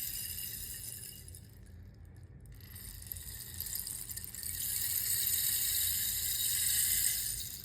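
Rainstick being tipped: its pebbles cascade with a high, rain-like pattering that dies down about two seconds in. A fresh pour then builds up, runs steadily, and trails off near the end.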